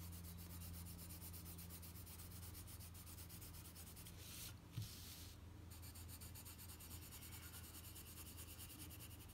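Faint scratching of a colored pencil shading on paper in quick, repeated strokes, over a steady low hum.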